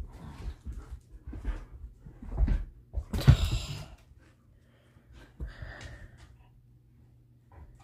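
A Siberian husky snuffling and huffing right up against the phone, with knocks and rubbing as it bumps the phone; the loudest huff comes a little after three seconds.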